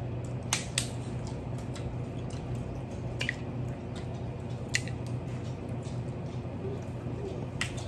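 Crab shells being cracked and snapped apart by hand: several sharp snaps spaced a second or more apart, over a steady low hum.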